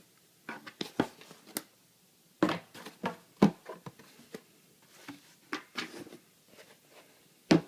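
Handling noise from a sneaker box and a pair of basketball shoes: short rustles and scrapes with several sharp knocks as the shoes and box are moved about.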